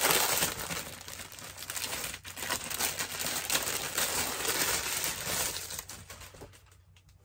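Crinkling and rustling of packaging and fabric as a folded T-shirt is pulled out and unfolded, dying away about six seconds in.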